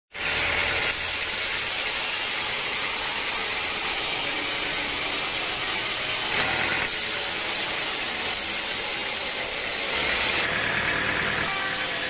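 Band sawmill blade cutting through dry, girdled teak that has seasoned for four years: a steady, hissing sawing noise.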